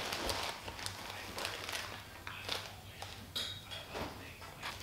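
Crinkling of a plastic chip bag being handled, in many short irregular crackles, with footsteps on stairs and floor.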